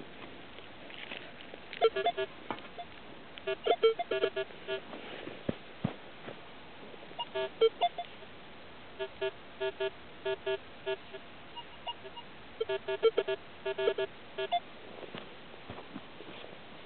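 Minelab X-Terra 705 metal detector sounding target signals: groups of short beeps at two alternating pitches, repeated several times as the coil passes back and forth over a target. A few faint knocks come between the groups.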